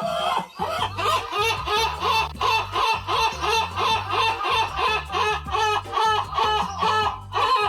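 Novelty music track built on repeated chicken clucks, about three a second, over a steady bass line.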